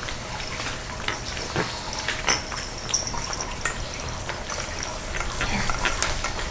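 Two cats eating from food bowls close to the microphone: a run of irregular wet smacking and chewing clicks.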